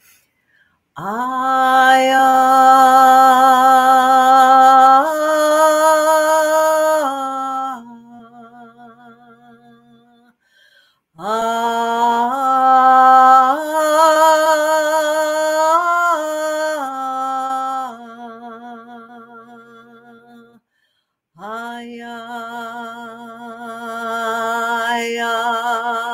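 A woman's solo unaccompanied voice chanting a soul voice blessing in long held notes that step up and down a little. It comes in three phrases with short pauses between, each trailing off into a softer wavering tone.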